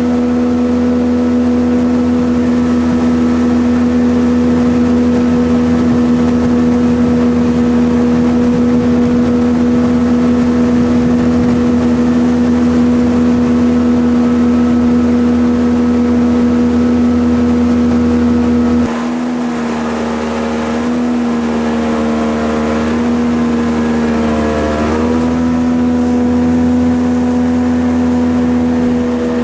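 Jet boat engine running steadily at speed. A little before two-thirds through the throttle eases off and the pitch wavers and dips for a few seconds, then it settles back to a steady run.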